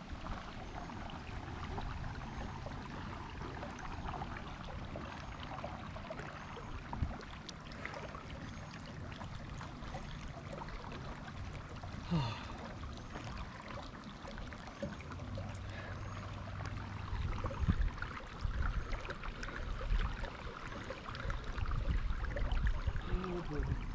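A kayak paddle dipping into calm canal water, with water trickling and lapping along the hull as the boat glides. A low rumble of wind on the microphone runs underneath.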